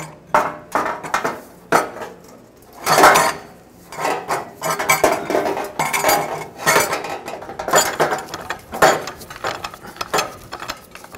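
A new catalytic converter exhaust pipe clanking and scraping against metal as it is handled into position under a truck. The clinks and knocks come irregularly, loudest about three seconds in and again near the end.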